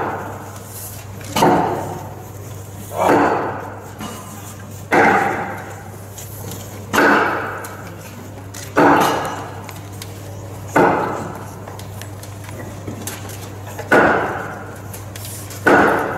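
Slow, deliberate hammer blows, eight strikes about two seconds apart with one longer pause, each echoing in a large hall: a staged nailing to the cross. A steady low hum runs underneath.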